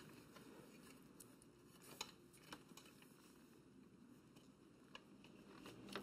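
Near silence: faint room tone with three soft clicks, the small knocks of the shock's remote preload adjuster and its hose being worked over the motorcycle's drive chain by hand.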